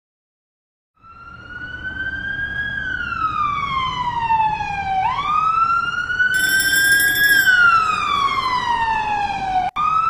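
A wailing siren fades in about a second in and sweeps slowly up and down in pitch, twice, rising to a high peak and falling to a low one each time.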